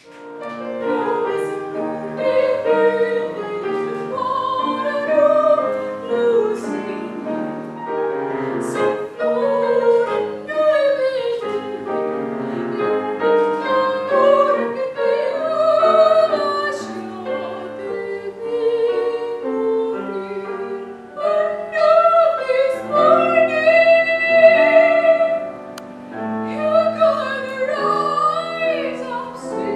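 Solo female soprano singing classical art song in operatic style, with wavering vibrato on sustained high notes, accompanied by a Bösendorfer grand piano.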